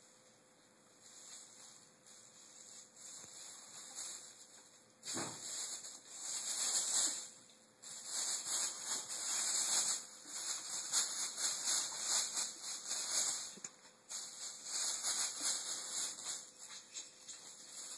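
Thin plastic shopping bag crinkling and rustling as a ferret burrows into it and drags it across carpet. It is faint at first, then comes a knock about five seconds in, followed by irregular louder bursts of rustling.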